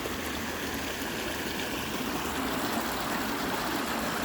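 Creek water flowing and trickling steadily over rocks.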